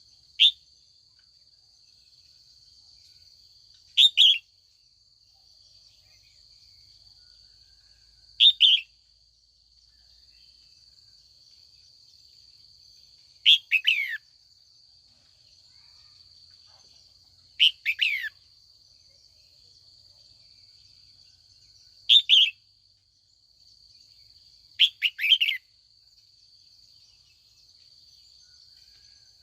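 Female red-whiskered bulbul giving short calls of one to three quick, falling notes, repeated about every four seconds. These are calls to lure wild bulbuls in.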